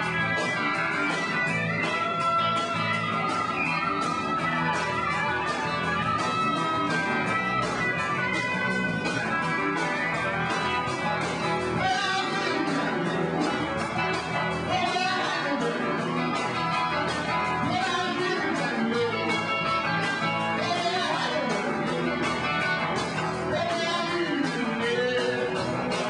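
A rock band playing live, electric guitar to the fore over a steady drum beat.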